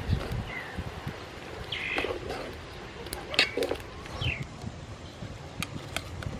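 Small birds chirping, a few short falling chirps. Several sharp clinks sound between them, from a metal ladle knocking the aluminium pot as coconut milk is stirred.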